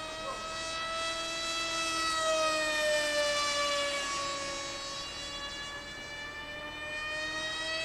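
Z84 RC flying wing's electric motor and propeller whining in flight overhead, a high steady tone whose pitch sags in the middle and climbs back near the end, loudest about three seconds in.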